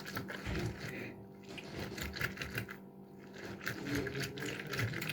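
A lemon being squeezed for its juice: a rapid, irregular run of small wet clicks and crackles, over a faint steady hum.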